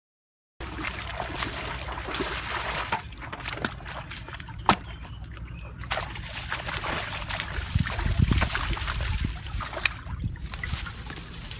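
Shallow water sloshing and splashing, with sharp knocks and clicks now and then, the loudest a little under halfway through. It starts abruptly about half a second in.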